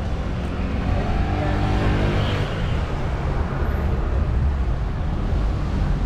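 Street traffic: a vehicle drives past, its engine note falling slightly between about one and two and a half seconds in, over a steady rumble of traffic.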